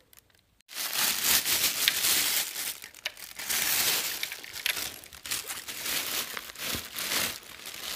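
Clear plastic bag crinkling and rustling as it is handled around a folding speaker stand. It starts under a second in, after a moment of near silence, and keeps up as a dense crackle.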